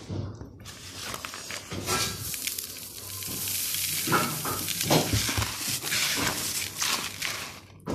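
Dry puffed rice and chanachur being stirred and tossed by hand in a bowl: a continuous rustling, crackling hiss with scattered small clicks.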